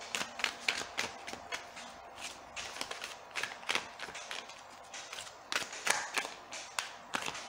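A deck of oracle cards being shuffled by hand, overhand: a quick irregular run of soft card slaps and flicks, several a second.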